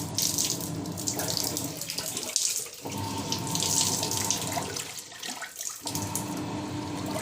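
Washing machine running with water in the tub after a repair to a motor that would not turn: water rushing and sloshing over a steady motor hum, stopping briefly twice and starting again.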